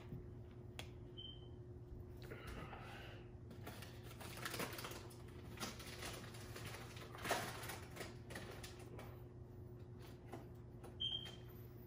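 Faint rustling and scattered light clicks from a plastic bag of Maseca corn flour being handled, with two brief high squeaks, one about a second in and one near the end.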